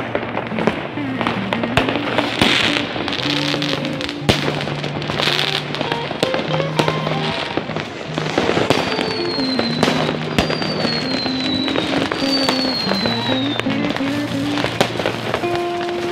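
Fireworks going off: sharp bangs and bursts of crackling, with three high whistles falling in pitch in the second half, over music playing throughout.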